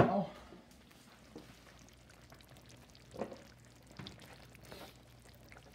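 Faint sizzling of ground beef cooking in a pan under freshly poured tomato pasta sauce, with a sharp knock at the very start and a few soft taps and scrapes.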